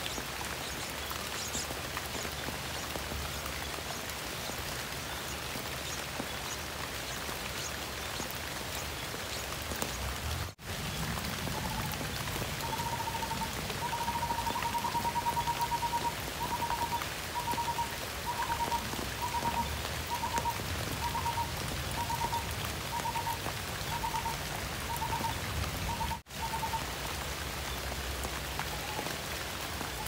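Heavy rain falling steadily on leaves. From about twelve seconds in, a string of short notes at one steady pitch repeats about one and a half times a second for some fifteen seconds, then stops.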